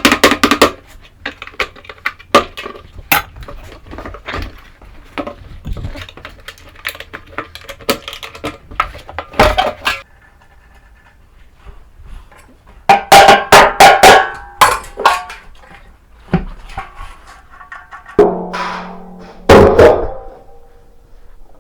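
Irregular knocks, clicks and clatter of tools and metal parts being handled during washing machine repair work, with a few short pitched whirring bursts, the longest lasting about a second near the end.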